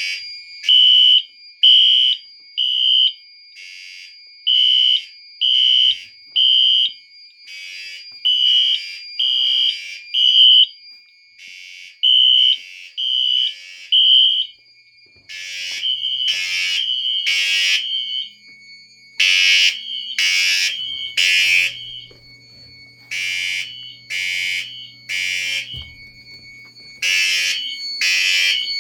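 Fire alarm horns sounding the temporal-3 evacuation code, three beeps and then a pause, repeating after a pull station has been activated. About fifteen seconds in, a second, louder and harsher horn joins, also pulsing in groups of three.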